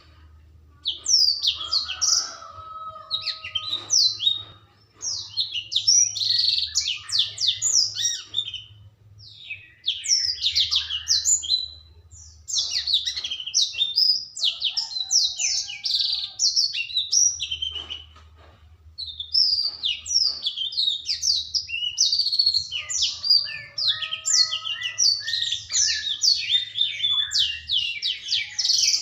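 Young blackthroat (black-throated canary) singing loudly in long runs of fast, twittering notes, broken by a few short pauses. A faint low hum sits underneath.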